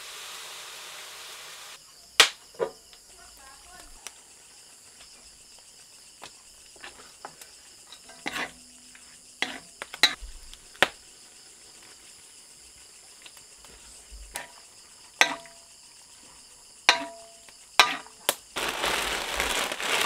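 Metal spatula and ladle clinking sharply against a wok about a dozen times, over a steady trilling of crickets and other night insects. Food sizzles in the wok for the first couple of seconds, and a rustling hiss starts near the end.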